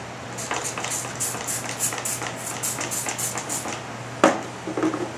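Trigger spray bottle of degreaser squirting rapidly, about four squirts a second, for about three seconds. Near the end a single sharp knock, the loudest sound, followed by a brief low ring.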